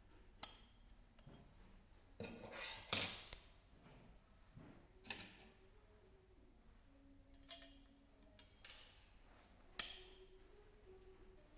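Stainless steel vegetable grater frame and its metal blade inserts being handled, giving a handful of sharp metallic clicks and short scrapes. The loudest clicks come about three seconds in and again near ten seconds.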